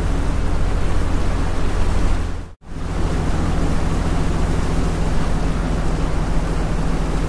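Boat's outboard motor running steadily under way, under a heavy rush of wind and water on the microphone. The sound drops out for a split second about two and a half seconds in, then carries on unchanged.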